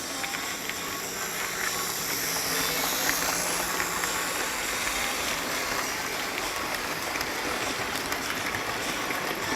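Lima OO gauge model locomotives running on the track: a steady motor whirr and wheel rumble with faint clicks, swelling a little about two seconds in.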